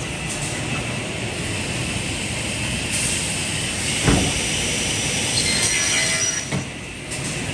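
Holzma HPP 350 beam saw running: a steady mechanical noise with brief hisses, a sharp knock about four seconds in and a softer knock near the end.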